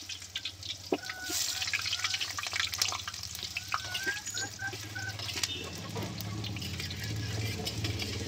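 Potato pieces deep-frying in hot oil in a metal kadai: a steady sizzle full of small crackles and pops, with the steel spatula now and then knocking the pan.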